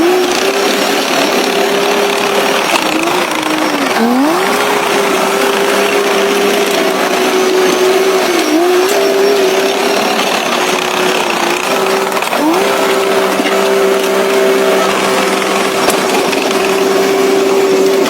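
Diesel engine of heavy earthmoving equipment running steadily, its pitch dipping briefly several times as it takes load, most deeply about four seconds in.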